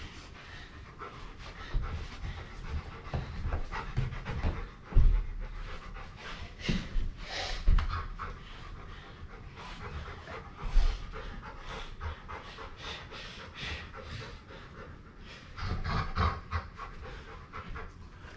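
A dog panting during rough play, breath after breath, with a few dull thumps from the scuffle.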